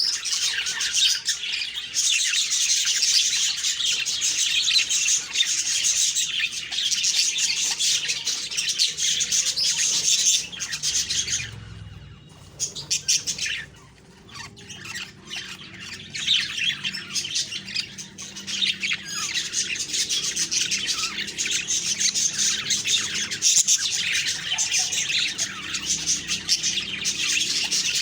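Budgerigars chirping and chattering continuously with a few squawks, briefly dropping off about halfway through before picking up again.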